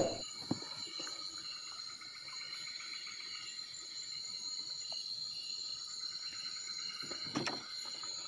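Night insect chorus: a steady, high, even trill, with a couple of faint knocks, one about half a second in and one near the end.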